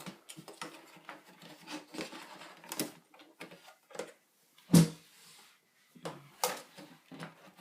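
Scattered clicks, taps and rattles of hands handling the plastic and metal internal parts of an iMac G4 during reassembly, with one louder knock about five seconds in.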